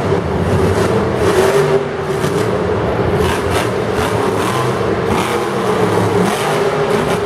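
Monster truck's supercharged big-block V8 engine running loud and revving as the truck drives and pops its front wheels up on the dirt arena floor.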